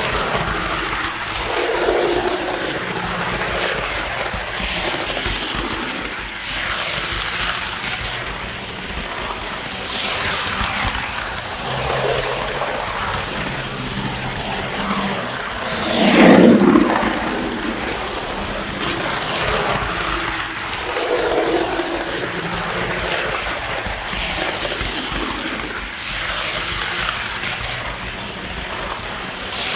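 Model train running on its track, heard from a car riding in the train: a steady rumble and clatter of wheels on the rails with the locomotive's motor, swelling every few seconds, and one louder burst of noise about halfway through.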